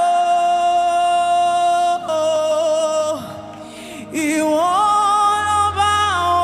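Slow worship music with singing: a voice holds long, sustained notes, gliding slowly from one to the next, over soft backing. A low bass note comes in about five seconds in.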